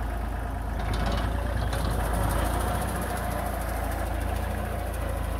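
Tractor engine running steadily while driving a PTO-powered Shaktiman spinner fertilizer broadcaster. A fast, fine rattle comes in about two seconds in.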